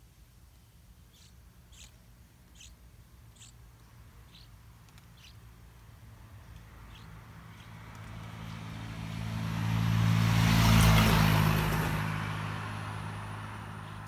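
A motor vehicle passing by: its engine and road noise swell over several seconds, peak about ten to eleven seconds in, then fade. In the first five seconds, before it builds, come short high bird chirps, about one a second.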